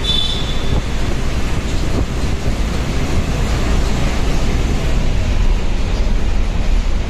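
Bus travelling at speed through a road tunnel: a steady rush of engine, tyre and wind noise, heaviest in the low end, with wind on the microphone. A short high-pitched tone sounds right at the start.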